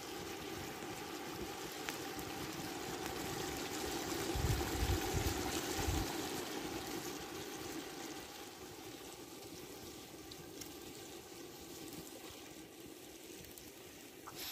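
Sliced zucchini sizzling in a metal pot over a wood fire: a steady hiss that swells about four seconds in, with a few low rumbles, then eases off.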